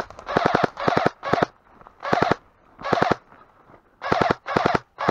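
Airsoft rifle firing about eight short full-auto bursts, each a fast rattle of shots, with short pauses between them.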